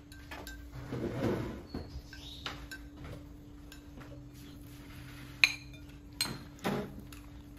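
Metal spoons and forks clinking and scraping against ceramic bowls during a meal. There are scattered sharp clinks, the loudest about two thirds of the way in, with a few more just after. A faint steady hum runs underneath.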